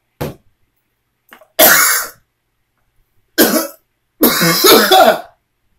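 A person coughing hard just after gulping down a drink: one short cough at the start, then three loud coughing bouts, the last and longest about four seconds in.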